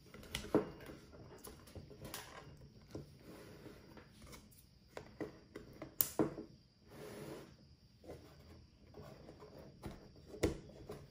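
Handling noise from the plastic panels of a flat-pack UV curing box as small plastic retaining rings are pushed onto the panel tabs. There are a few sharp plastic clicks and taps, the loudest about six seconds in, with soft rustling between them.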